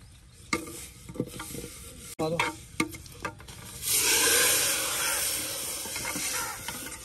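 Metal utensils clatter against a pan, then about four seconds in something goes into hot oil and it starts to sizzle loudly, the hiss easing off slowly.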